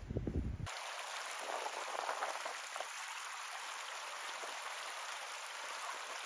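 A shallow mountain stream babbling and splashing over rocks, a steady hiss of running water that cuts in suddenly less than a second in, after a brief low rumble.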